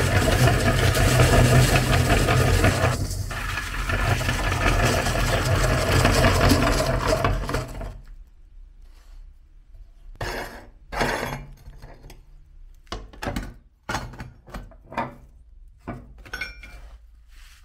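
Electric meat grinder running and crunching ice cream cones into crumbs: a steady motor hum under dense crackling. It stops about eight seconds in, and scattered short crunches and rustles follow as a hand handles the crumbs.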